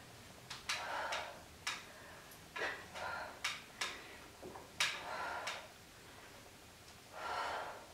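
A woman breathing hard with exertion: about five short, forceful breaths of about half a second each, coming every second or two, several of them starting with a sharp click.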